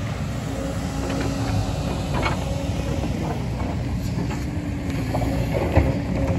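JCB 225 LC excavator's diesel engine running steadily with a constant whine over it, and a few scattered knocks and scrapes as it works the landslide debris, the sharpest near the end.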